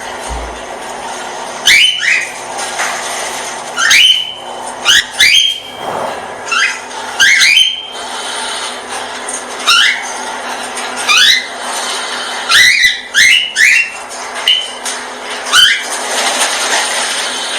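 Cockatiel giving repeated short, loud, rising whistled calls, sometimes in quick pairs, one every second or two, over a steady background hiss.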